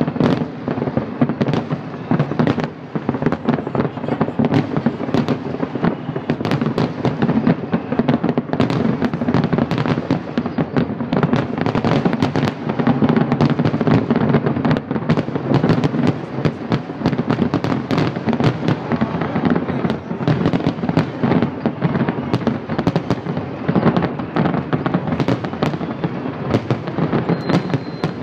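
Fireworks display going off in a continuous barrage: many bangs and crackles overlapping, several a second, with no pause.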